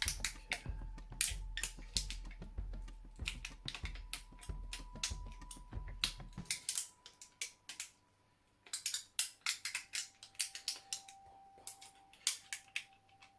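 Thin tin-can metal being bent back and forth by hand to fatigue it, giving quick irregular crinkling clicks, with a short pause a little past halfway. The metal is thick and slow to fatigue.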